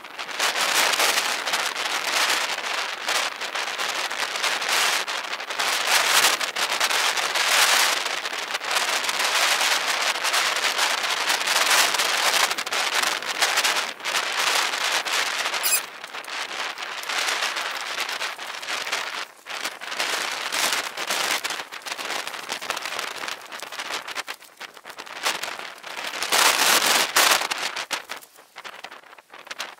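Bicycle tyres rolling over grass and a dirt track: a crackling, rustling hiss that swells and fades with the ground and speed, dipping briefly about two-thirds of the way in and again near the end.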